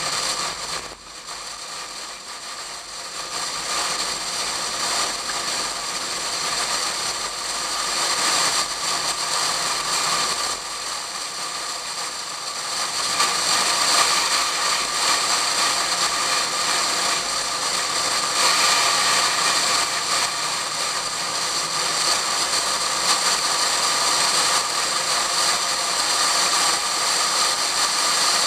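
Wind rushing over a camera sealed in a waterproof case on the hood of a Pontiac Fiero at track speed, with the car's engine underneath it. The noise dips sharply about a second in, then builds steadily louder as the car gathers speed.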